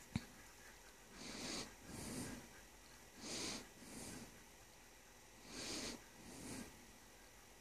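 A person breathing heavily through the nose right at the microphone: three in-and-out breaths, evenly spaced and hissy, from a severely deviated septum and allergies. One sharp click just after the start.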